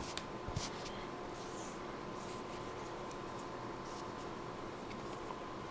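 Faint rustling and scratching of thread and cloth being handled during hand needlework. There are a few soft scrapes in the first couple of seconds, then mostly a steady background hiss.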